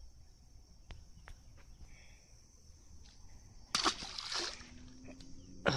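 A small fish released back into a stream, hitting the water with a short splash about four seconds in, after a few faint ticks of handling.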